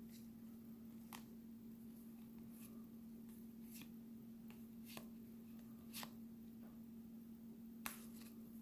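Faint, sparse clicks of baseball trading cards being handled and flipped through by hand, about six in all, over a steady low hum.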